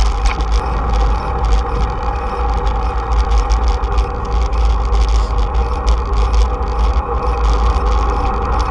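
Wind rushing over the microphone of a camera on a moving bicycle: a steady, loud low rumble with a hiss of motion over it.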